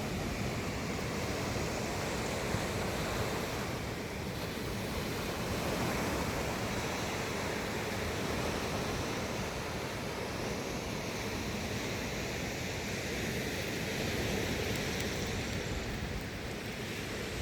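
Black Sea waves washing on the shore: a steady wash of surf that swells and eases slowly.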